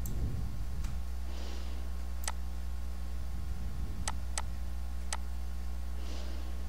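Computer mouse clicking, about five or six sharp, isolated clicks spaced unevenly, over a steady low electrical hum.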